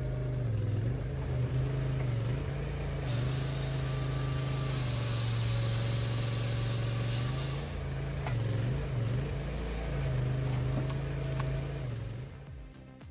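Compact loader engine running steadily to drive a firewood processor attachment. A few seconds in, a hissing noise joins it for about four seconds, and the sound fades out near the end.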